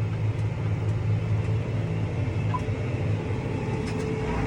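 Tractor engine running steadily, heard from inside the cab, with heavy rain hitting the cab as a steady hiss and a few faint ticks.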